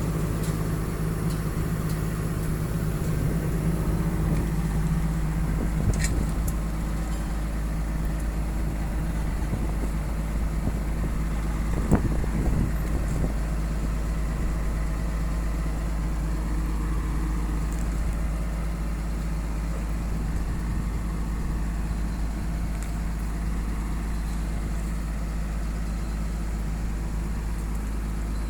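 Komatsu PC200 excavator's diesel engine idling steadily, with a single knock about twelve seconds in.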